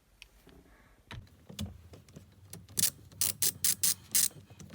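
Ratchet wrench clicking as a bolt holding the gear knob is undone: a few faint clicks, then a quick run of about seven sharp clicks in the second half.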